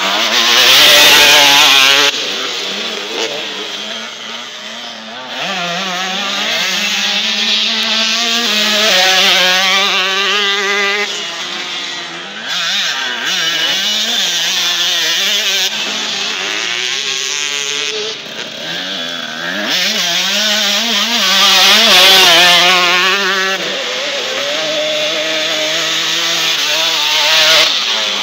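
Motocross dirt bike engine revving up and down as the rider accelerates, shifts and slows through the corners, loudest as a bike comes close about a second in and again some twenty seconds in.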